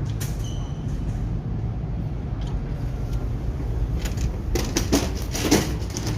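Lift at an airport arriving: a single short chime tone about half a second in over a steady low hum, then a cluster of knocks and rustling from about four seconds in, the loudest near the end.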